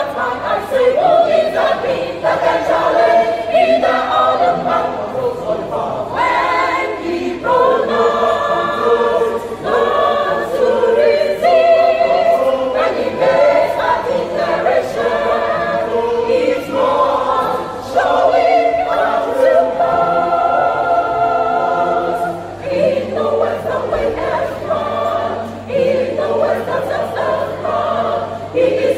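A 27-voice church choir singing a praise song together, the many voices in harmony with no break.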